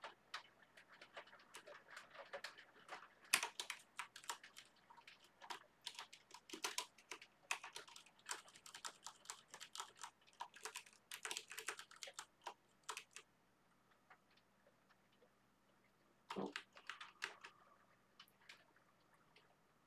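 Typing on a computer keyboard: quick runs of key clicks, a pause of a few seconds about two-thirds of the way in, then a short burst of keystrokes near the end.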